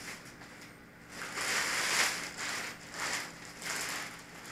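Clear plastic bag crinkling and rustling as it is pulled off a foam RC airplane part, in three bursts, the first and loudest about a second in.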